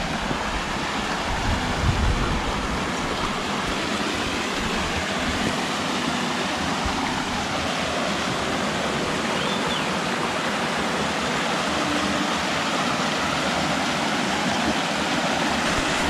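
Stream water rushing steadily over a small rocky cascade and churning into a rock pool.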